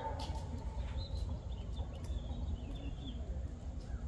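Faint bird chirps over a low, steady outdoor rumble, with a couple of soft clicks.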